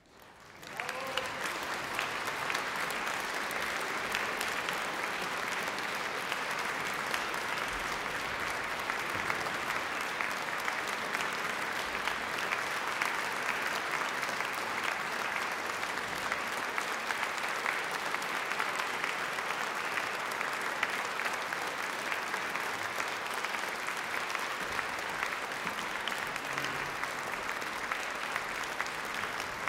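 Concert-hall audience applauding, breaking out about a second in and continuing steadily.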